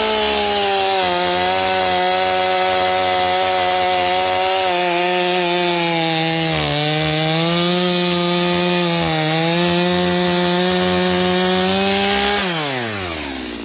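Stihl MS250 two-stroke chainsaw held at full throttle while cutting through a log, its pitch sagging briefly twice under load. Near the end the throttle is released and the revs fall away.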